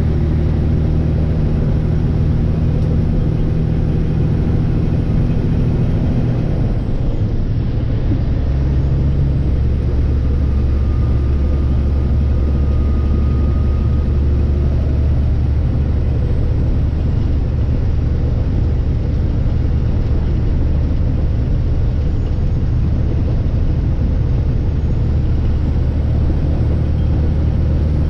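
Semi truck's diesel engine running steadily, heard inside the cab while driving on the highway. Its note drops lower about seven seconds in and then holds steady.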